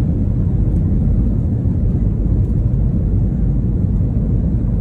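Airliner cabin noise during takeoff: the jet engines and rushing air heard from inside the cabin as a loud, steady low rumble.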